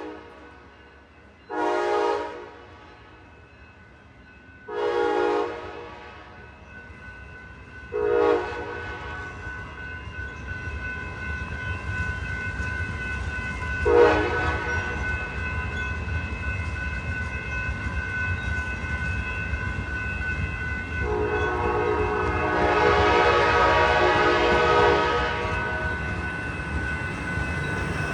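Train horn sounding a series of blasts: three of about a second each in the first nine seconds, a short one about halfway, and a long blast of about four seconds near the end. A low rumble of the train grows louder from about a third of the way in.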